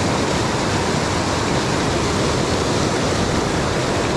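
Mountain stream running high and fast, a steady rush of whitewater pouring over rocks.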